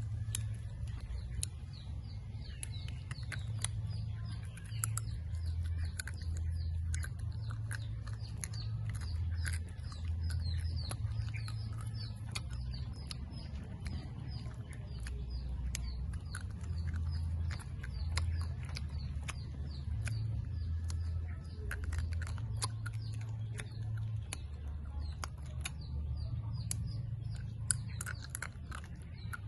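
Close-up chewing and lip smacking on chewy dried banana: many short wet clicks of mouth and teeth. Birds chirp behind it, over a steady low rumble.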